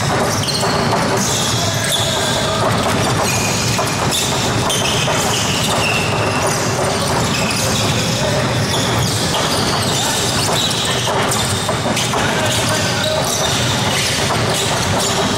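Many basketballs bouncing on an indoor court, mixed with sneaker squeaks and players' voices, all echoing in a large sports hall.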